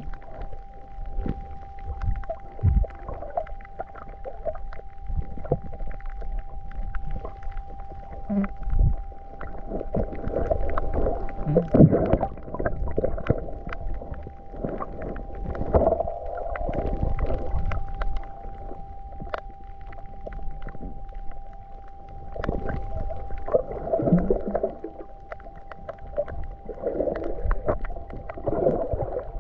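Muffled water sounds from a camera held underwater: irregular sloshing swells and bubbling with scattered small clicks, over a faint steady tone.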